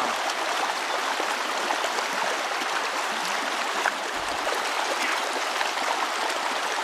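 Steady rushing of a shallow river's current around the legs of a wading angler, with a brief splash about four seconds in as a trout is let go from his hands.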